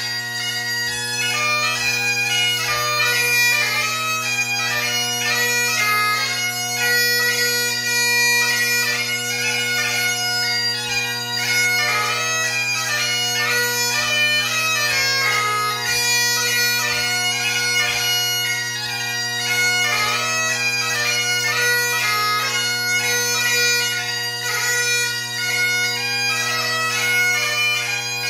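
Great Highland bagpipe played continuously: the drones hold a steady low tone under the chanter's fast, ornamented melody, part of a march, strathspey and reel set.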